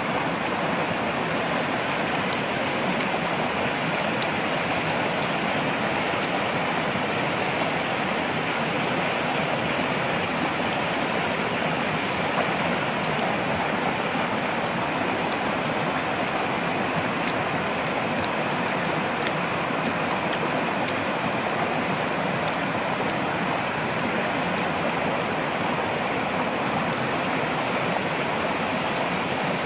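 Shallow stream rushing steadily over rock slabs, a constant even wash of water noise.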